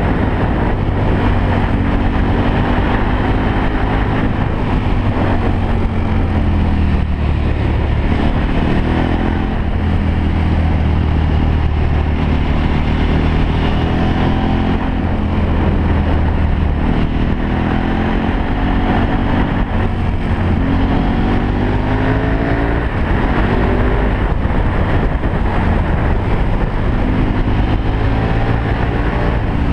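Motorcycle engine heard from the rider's seat, its pitch climbing and dropping again and again as the rider accelerates out of bends, shifts and rolls off into the next curve.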